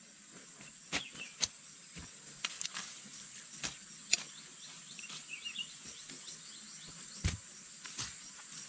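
Outdoor ambience: a steady high-pitched insect drone, with a few short bird chirps and scattered sharp clicks and knocks, the loudest knock about seven seconds in.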